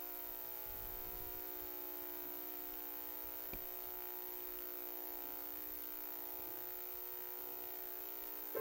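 A steady hum made of several held tones, unchanging throughout, with no speech.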